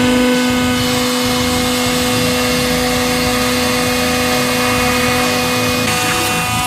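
Hydraulic press pump and motor running: a steady hum over a noisy rush. The hum stops near the end while the rush carries on.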